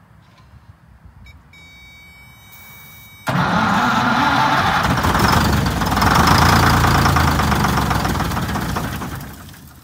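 Detroit Diesel 6V71 two-stroke diesel, started for the first time after sitting for decades. After a faint high whine, it comes in abruptly about three seconds in, runs loud for about six seconds, then dies away near the end.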